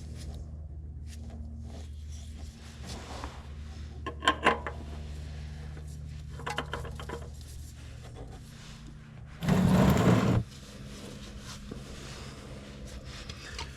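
Handling noises while a new spin-on oil filter is threaded onto the engine: a few sharp clicks about four seconds in and a loud, rough scraping rustle of about a second near ten seconds in, over a steady low hum.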